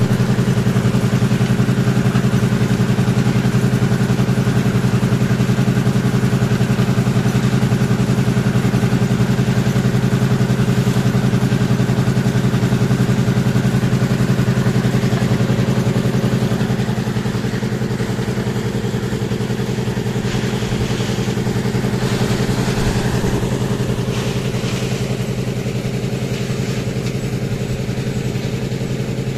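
Portable drum concrete mixer running, its engine giving a steady low drone that gets a little quieter about halfway through.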